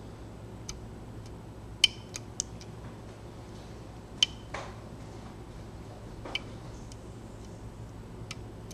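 Metal lock pick working the pins of a Mul-T-Lock Garrison cylinder: sparse, sharp little clicks and taps, the two loudest about two and four seconds in. The lock sits in a false set with one pin still to set.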